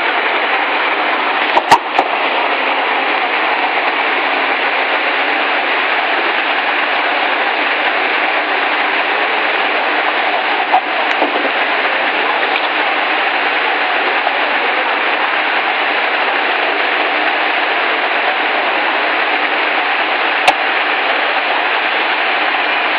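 Loud, steady rushing noise that does not change, broken by a few sharp clicks: a pair about two seconds in, one near the middle and one near the end.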